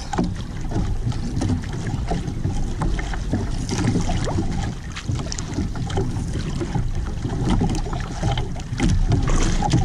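Wind on the microphone and choppy sea water slapping and splashing against a small outrigger boat: a steady low rushing with irregular short splashes and knocks.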